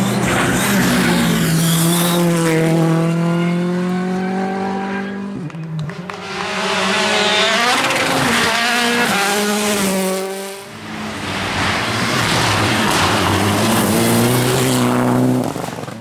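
R5 rally cars, a Ford Fiesta R5 and then a Peugeot 208 R5, driven hard past one after another. Their turbocharged 1.6-litre four-cylinder engines rise and fall in pitch through gear changes. The sound dips briefly twice, about five and ten seconds in, as one car gives way to the next.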